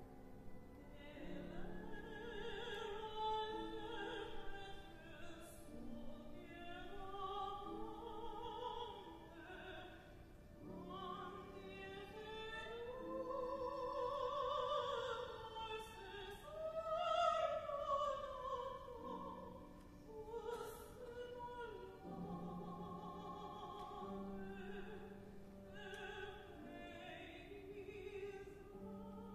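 Mezzo-soprano singing a French art song in operatic style with wide vibrato, long held notes rising to a loud peak a little past the middle, accompanied by viola and piano.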